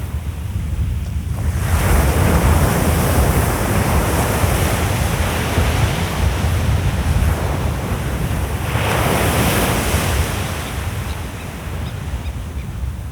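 Sea waves breaking on the shore, the surf swelling about a second and a half in and again about two-thirds of the way through, with wind rumbling on the microphone throughout.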